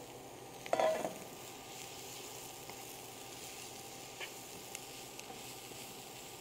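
Shredded cabbage, carrot and spinach sizzling in a nonstick frying pan as a wooden spatula stirs and turns them, a steady frying hiss with a few light taps of the spatula. One brief louder sound stands out about a second in.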